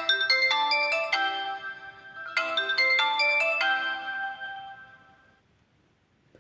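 A built-in ringtone of the Sony Xperia XA (F3111) smartphone: a quick electronic melody in two phrases, the second starting about two and a half seconds in, then fading out.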